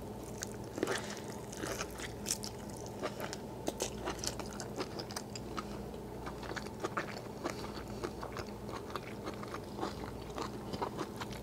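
A person biting into and chewing lobster meat: a run of many short, irregular mouth clicks and smacks.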